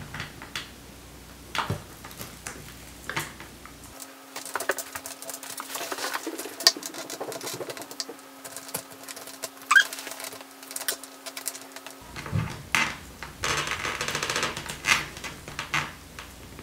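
Hands prying at the split seam of a frozen durian's hard, spiky husk: irregular cracks, clicks and scratchy rustles, with a longer scratchy stretch late on. The husk resists because the fruit is still partly frozen.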